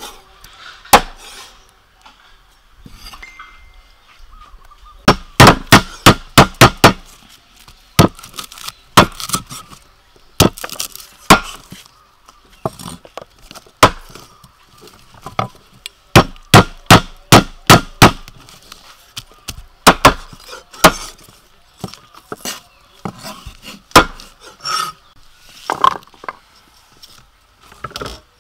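Cleaver chopping on a thick wooden chopping block: sharp knocks, many in quick runs of several strokes with short pauses between. It is cutting eel into chunks and green stalks into short lengths.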